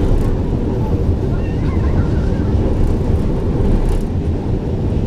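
Steady low rumble of an MRT Line 3 train running along its elevated track, heard from inside the carriage.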